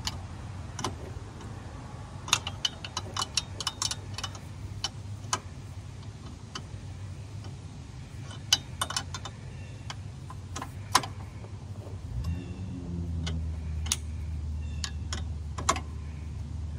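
Ratcheting combination wrench clicking in short irregular runs, with metal tapping, as nuts on a tractor's pedal linkage bracket are tightened. A low steady hum sits underneath and grows a little louder about two-thirds of the way through.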